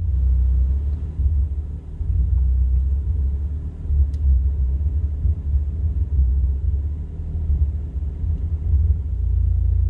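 1985 Toyota Celica's 22R-E four-cylinder engine idling roughly, a deep rumble that wavers unevenly in loudness, muffled by the closed doors and windows.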